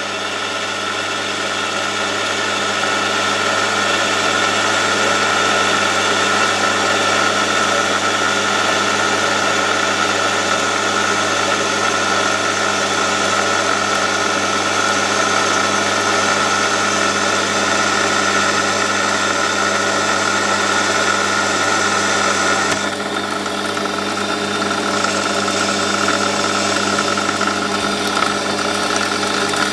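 Warco metal lathe running at about 1000 RPM, turning a 12 mm steel bar with a 20 thou cut: a steady motor and gear whine under a hiss. The hiss thins a little about 23 seconds in.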